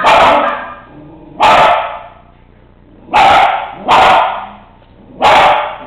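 A dog barking five loud single barks, irregularly spaced a second or so apart, at a cat during a cat-compatibility test.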